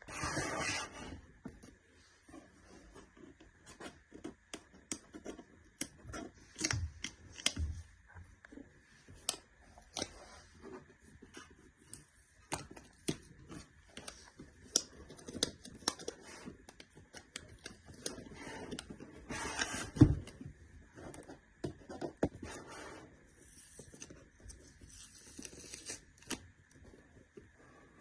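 Packaging being handled and opened: scattered clicks, taps and short rustles of box and wrapping, with a sharp knock about twenty seconds in, over a faint steady high tone.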